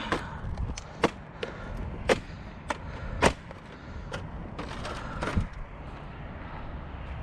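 A series of sharp knocks and clacks, roughly one a second, over a low rumble.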